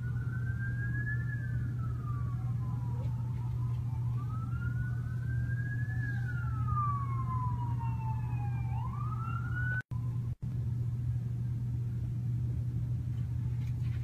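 An emergency vehicle siren wails in slow rises and falls a few seconds apart, over a steady low hum. About ten seconds in, the sound drops out twice for a moment and the siren is gone after that, leaving the hum.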